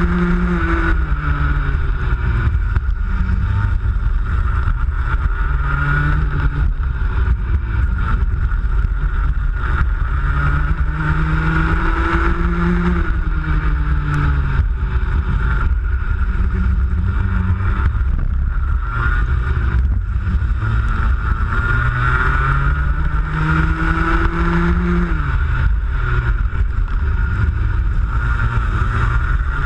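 Racing kart engine at full throttle from on board, its note climbing along the straights and dropping off into the corners several times, over a steady low rumble.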